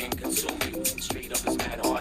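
Music with a steady beat and a vocal line.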